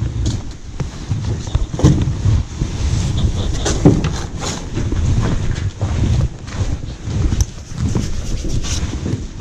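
Handling noise from a body-worn camera: clothing rubbing on the microphone, with scattered knocks and scrapes as a person clambers through a wall hatch onto a debris-covered floor. The noise starts suddenly and keeps going, dense and rumbling.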